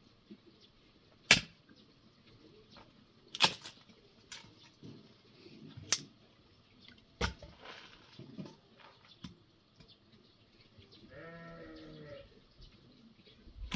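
A farm animal bleats once near the end, a wavering call a little over a second long. Several sharp knocks and clicks come before it, a few seconds apart.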